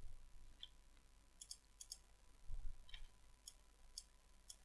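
Faint clicks of a computer mouse and keyboard, several spaced out and some in quick pairs, over a faint steady tone.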